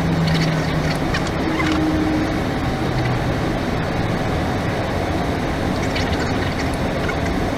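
Steady rush of airflow and engine noise inside an Airbus A320 cockpit in flight, with a couple of brief faint low tones in the first few seconds.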